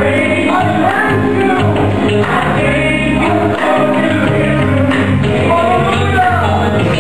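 Church worship team singing a gospel song in several voices, over steady accompaniment from a live band with keyboard and guitar.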